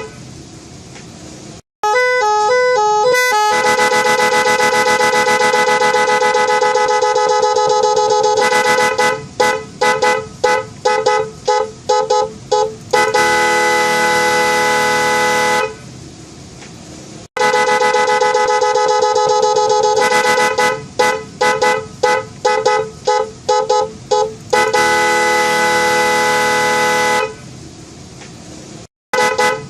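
Snail-type electric car horn (klakson keong) sounding two pitches together. A quick run of alternating beeps about two seconds in is followed by a long steady blast of about five seconds, then a string of short, rapid toots. Further long blasts and toot runs follow, separated by brief pauses.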